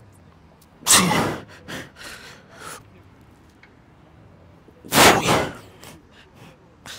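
A man's forceful breaths in time with pike push-up reps: two loud exhales about four seconds apart, with shorter, fainter breaths between.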